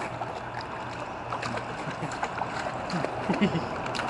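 Swimming pool water lapping and sloshing, with small splashes, around a baby held in the water. A few short voice sounds come about three seconds in.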